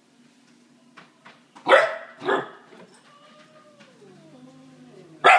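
12-week-old Akita puppy barking: two loud barks close together, a falling whine, then another loud bark near the end. These are play barks, the puppy wanting to play.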